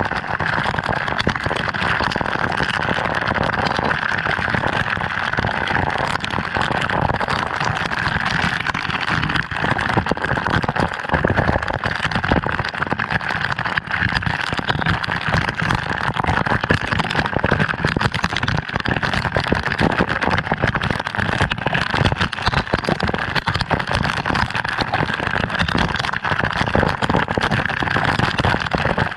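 Waterfall water falling and splashing close by: a loud, steady rush with no breaks.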